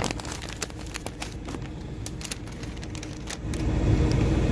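Steady low mechanical hum with scattered clicks and knocks, as of things being handled; the rumble grows louder about three and a half seconds in.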